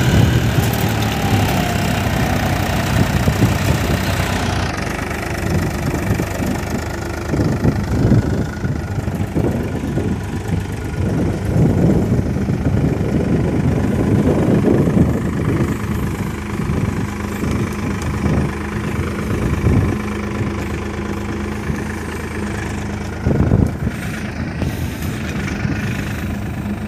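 Tractor diesel engine running, mostly at idle, its level rising and falling unevenly.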